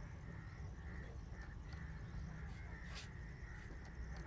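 Quiet outdoor background with a low steady hum and a few faint bird calls.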